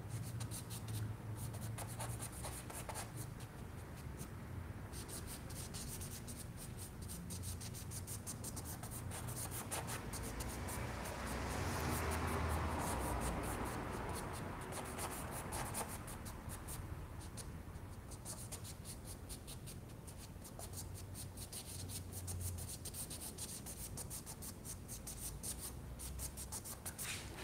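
Small bristle brush working oil paint into a canvas: a quick run of light, scratchy dabs and drags, with a louder stretch of rubbing about halfway through.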